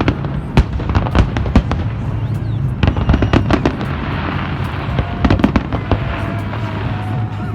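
Fireworks bursting overhead: a rapid series of sharp bangs, with a thick crackle in the middle of the stretch.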